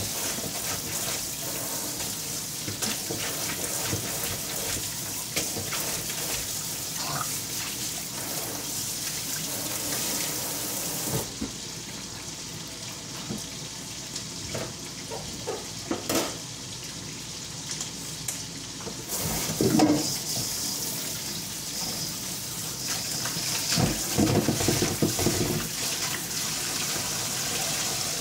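Tap water running steadily into a kitchen sink while dishes are washed, with several clatters of dishware.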